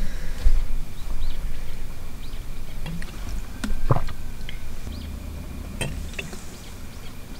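Small birds chirping now and then, short high calls, with a few clicks and knocks from a plastic drinking bottle being handled and drunk from; the loudest knock comes about four seconds in.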